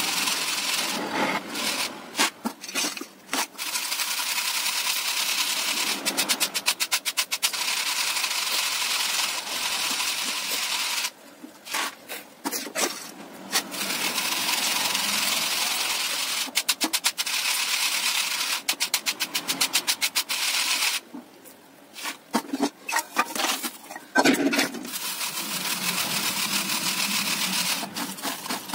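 Roasted peanuts rattling in a plastic colander shaken briskly to sift off their loose skins: a dense, rapid rattle, with a brief pause about 11 seconds in and another about 21 seconds in.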